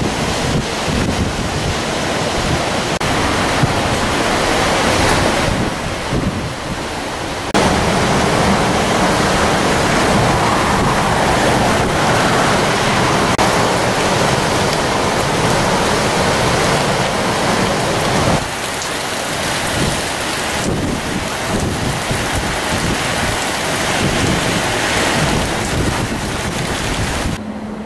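Cyclone-force wind and driving rain, a loud, steady rush with heavy wind buffeting on the microphone. The sound steps up abruptly about seven seconds in and drops back around eighteen seconds in.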